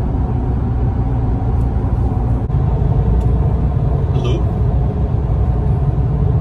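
Steady low rumble of road and engine noise heard inside a car moving at highway speed, with a brief break and click about two and a half seconds in where the recording cuts.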